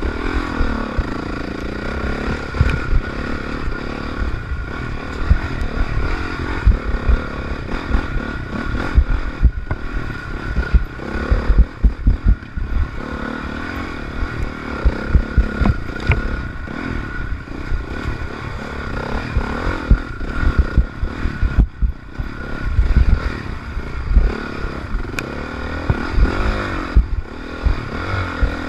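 Honda CRF450R's single-cylinder four-stroke engine revving up and down continuously as the dirt bike is ridden hard along a rough trail, with frequent thumps and rattles from the bike over the bumps.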